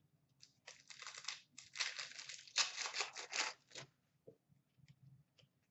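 A trading-card pack wrapper being torn open by hand, in three rasping rips over about three seconds, followed by a few faint taps of cards being handled.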